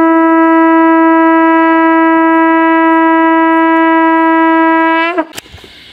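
Conch shell (shankh) blown in one long, loud, steady note, rich in overtones, that bends slightly upward and cuts off about five seconds in.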